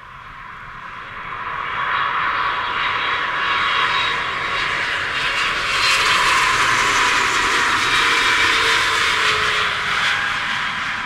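Boeing 777-300ER on final approach passing close by, its two GE90 turbofans at approach power: the jet noise builds over about two seconds, stays loud, and eases off near the end, with a faint whine that falls in pitch as it goes by.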